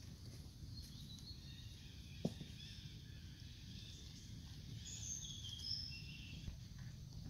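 Faint steady outdoor background noise with scattered soft high-pitched chirps, and one sharp click a little over two seconds in.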